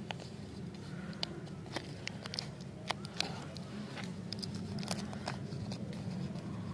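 Fingers peeling and crinkling a lollipop's paper wrapper: a run of irregular sharp crackles and small tearing sounds over a steady low hum.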